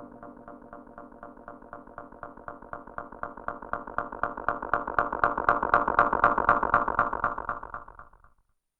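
Arturia MicroFreak synthesizer through a Behringer VD-400 analog delay pedal: a rapid pulsing of about eight notes a second. It swells louder, then fades out and stops about eight seconds in.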